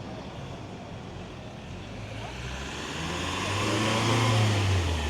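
A motor vehicle driving past close by, its engine and tyre noise growing louder, loudest about four seconds in, then fading, over street background.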